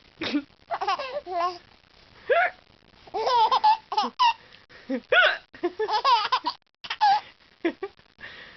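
A baby laughing in repeated short bursts, mixed with a woman's hiccups that set the laughter off.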